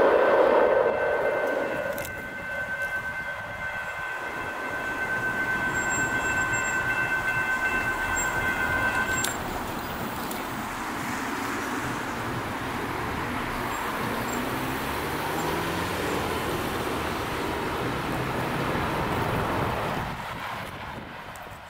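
Railroad crossing warning bells ringing steadily as a train's noise fades, then cutting off suddenly about nine seconds in. Road traffic follows over the crossing, with one vehicle accelerating, before it quiets near the end.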